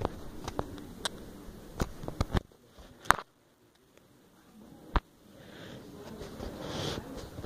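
Handling noise on a recording phone's microphone: scattered sharp knocks and rustling close to the microphone, with a hush about three seconds in and a rising murmur of room noise near the end.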